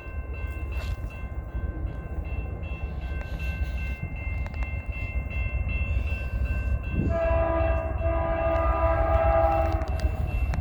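Diesel freight locomotive's air horn sounding one long blast of several tones, starting about seven seconds in and lasting nearly three seconds. Beneath it the low rumble of the approaching train grows steadily louder.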